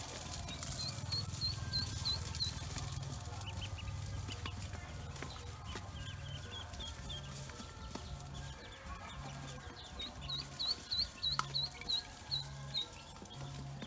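A bowlful of newly hatched Pekin and black ducklings peeping, in runs of quick, high chirps of about four a second near the start and again in the last few seconds, with scattered fainter peeps between.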